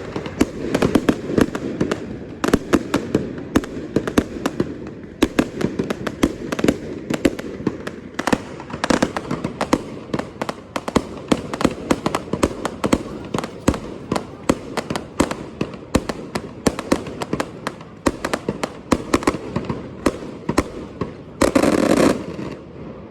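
Fireworks display: a rapid, dense string of bangs and crackles, several reports a second, with a louder, longer burst about a second before the end.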